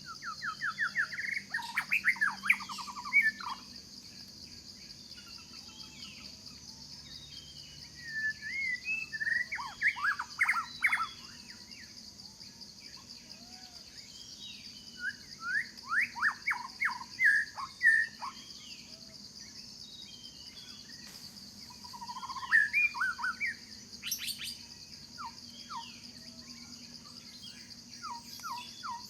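A bird singing phrases of quick, rapidly repeated notes, each phrase a few seconds long and repeated about every seven seconds, with a few single notes near the end. Under it runs a steady high insect drone.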